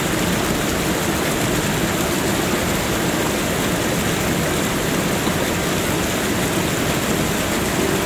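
Waterfall rushing: a steady, unbroken noise of falling water at an even level.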